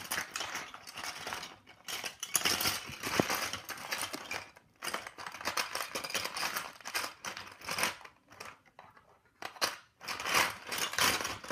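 Small plastic Lego bricks clicking and rattling as they are handled and rummaged through, in quick irregular clatters, with a quieter gap about eight seconds in.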